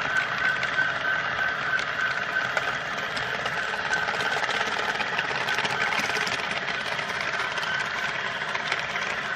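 HO-scale model freight train rolling past on the next track: a steady mechanical whirr and rattle of small wheels on rails, with many faint clicks. A high pulsing tone fades out in the first few seconds.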